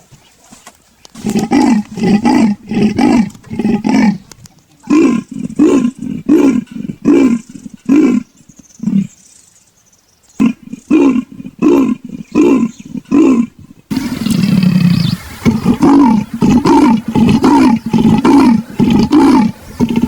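Leopard giving its sawing call: a series of harsh rasping grunts, about two a second, in three bouts with short pauses between. A denser run of calling follows about fourteen seconds in.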